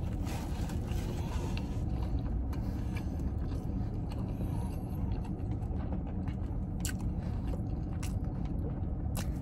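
A person chewing a mouthful of burger, with a few faint clicks, over a steady low hum inside a car cabin.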